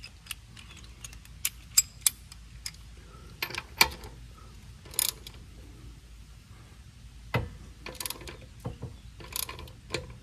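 Socket ratchet wrench working on a car wheel's lug nuts: irregular metallic clicks and clinks as the socket is fitted and the ratchet turned.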